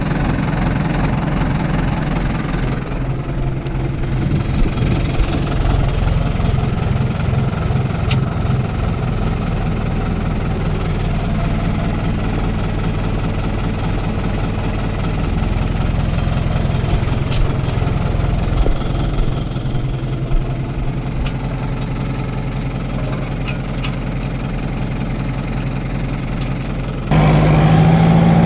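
Fiat 70-66 tractor's four-cylinder diesel engine running steadily while working a mower, heard from inside the cab. About a second before the end the sound abruptly steps up to a louder, steadier drone.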